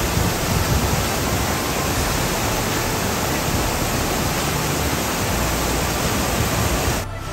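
A tall waterfall in full flow: a steady, dense rush of water falling down a rock face. It cuts off suddenly just before the end.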